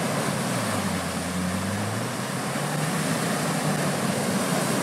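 A Land Rover Defender 90 P300's 2.0-litre turbocharged four-cylinder petrol engine working under load, its note rising and shifting, as the SUV ploughs through deep muddy water, with water and mud splashing and hissing around the wheels.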